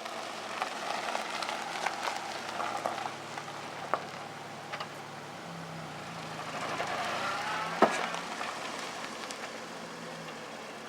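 Saturn car driving slowly, its engine running under road and tyre noise, with several sharp clunks; the loudest comes about eight seconds in. The clunks come from a front ball joint left untightened after the transmission swap.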